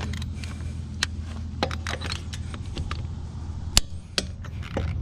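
Lug nuts being torqued with a socket and torque wrench: irregular metallic clicks, one sharper click near the end, over a steady low hum.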